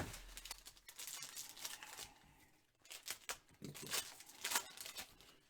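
Foil trading-card pack wrapper crinkling and tearing, with cards being handled, in irregular bunches of crackly rustles.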